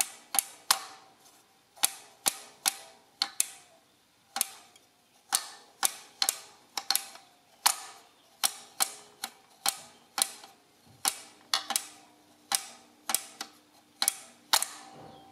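Number wheels of a Caroline adding machine, a 1960s French-licensed copy of the SIMEX design, being turned by hand step by step: a long run of sharp metal clicks from the wheels' spring detent mechanism, about two a second, with a short pause about a second in and again near four seconds.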